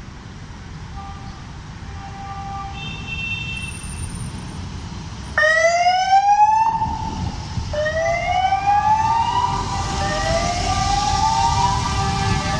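Police car siren sounding a repeating rising wail that starts suddenly about five seconds in. Each sweep climbs for about a second and starts again roughly every two seconds. Beneath it, a group of motorcycle engines rumbles, growing louder as the bikes approach.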